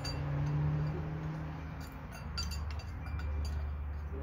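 Light metallic clinks with a short ring, a few times, over a steady low rumble.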